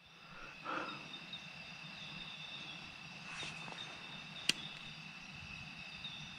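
Night insect chorus: a steady, high-pitched trilling, with one sharp crack about four and a half seconds in.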